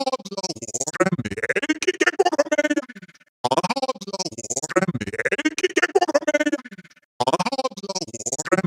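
Synthesized robotic voice stuttering, its syllables chopped into rapid repeated pulses so that no words come through. The same phrase repeats about every four seconds, with a brief break between repeats.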